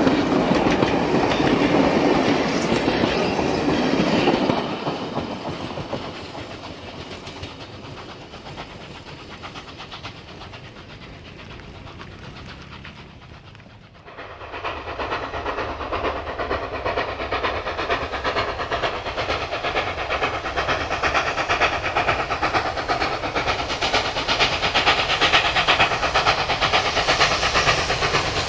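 Passenger carriages rolling past close by, wheels clicking over the rail joints, the sound fading away as the train recedes. About halfway through it gives way abruptly to NSW 59 class steam locomotive 5910 approaching, its rapid chuffing exhaust growing steadily louder.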